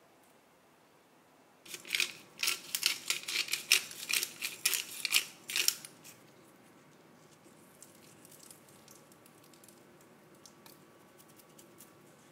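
Pepper mill grinding black pepper: a rapid run of crisp crunching clicks that starts about two seconds in and lasts about four seconds, then stops. Faint scattered ticks follow.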